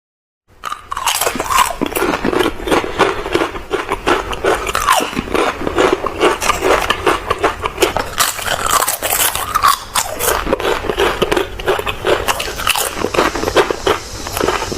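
Close-up biting and crunching of crispy food, chewed with rapid, dense crackling crunches that start about half a second in and carry on without a break.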